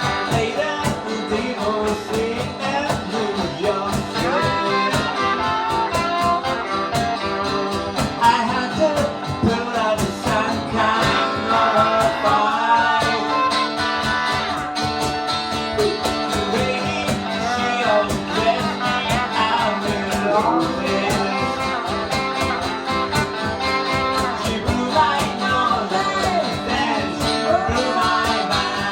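Small band playing a country-rock song: electric and acoustic guitars over a steady cajón beat, with singing.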